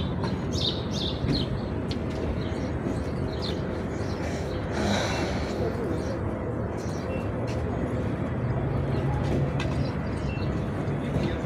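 Outdoor ambience: a steady background din with small birds chirping several times in the first few seconds, and a low steady hum coming in about eight seconds in.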